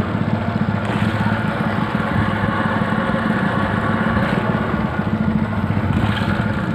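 Small boat's engine running steadily at low speed with an even, rapid firing beat, the boat under way.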